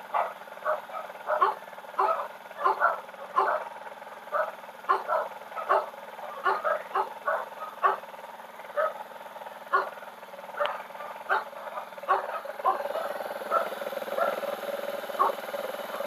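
A dog barking in quick, irregular barks. About twelve seconds in, a steady engine sound comes up and holds: the Yamaha YTX 125's single-cylinder engine running on its newly fitted carburetor.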